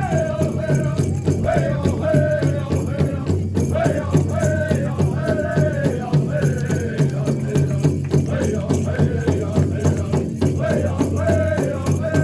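Drum group singing a powwow-style hoop dance song: voices carry a wavering melody over a steady, even beat on a big drum.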